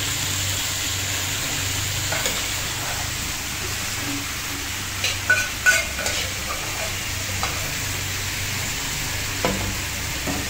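Food sizzling as it fries in hot oil in a pan, stirred with a spatula, with a few sharp clicks of the spatula against the pan about five to six seconds in and once more near the end.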